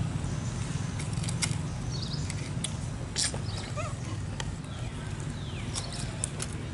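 Scattered sharp crackles and clicks of dry leaf litter as macaques move about, over a steady low rumble, with a few faint short chirps near the middle.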